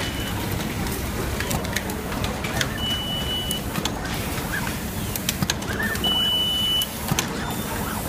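Workshop din around an automatic screw fastening machine: a steady low hum with scattered clicks and knocks from the mechanism. A short high-pitched tone sounds twice, about three seconds apart.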